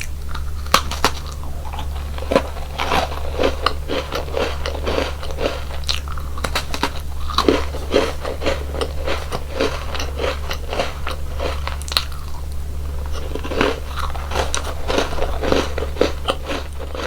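Close-miked biting and chewing of crunchy chocolate snacks and cookies: a rapid, irregular run of crisp crunches and crackles. A steady low hum lies underneath.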